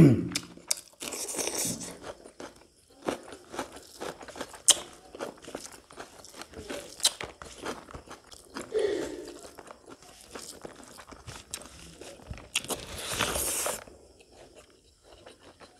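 Close-miked eating sounds: crisp crunching bites of raw cucumber and chewing. There are many short crackling clicks, a loud bite at the very start, and longer crunchy stretches about a second in and again near the end.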